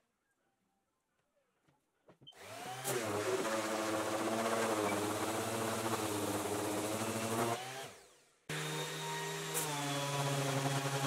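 An electric power tool's motor starts up, spins for about five seconds with a slight sag in pitch partway through, and winds down. It then runs again steadily at a slightly different pitch.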